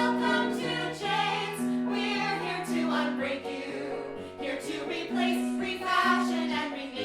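Music: several voices singing together in held notes, the pitches moving in step about every second.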